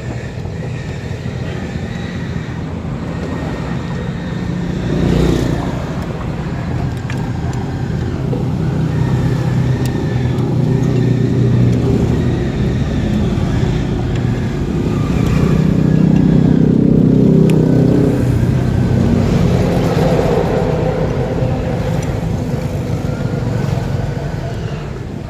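Motor vehicle engine running, a steady low hum that swells louder about a third of the way in and again past the middle.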